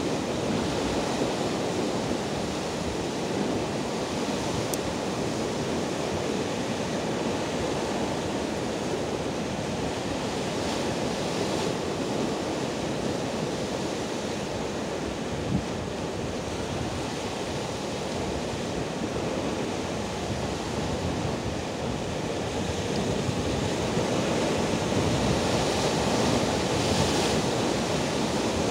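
Rough Black Sea surf breaking and washing over rocks, a steady rush of foaming water that grows louder near the end.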